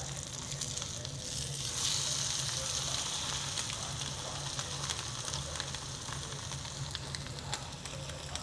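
Food sizzling and spitting in a frying pan, the sizzle growing louder about a second and a half in, with a steady low hum underneath.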